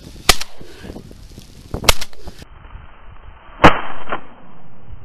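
Shotgun fired three times at ducks overhead, the shots about a second and a half apart.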